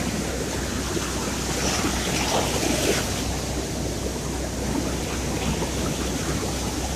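Sea surf: waves washing onto a shore in a steady rush of noise that swells a little about two to three seconds in.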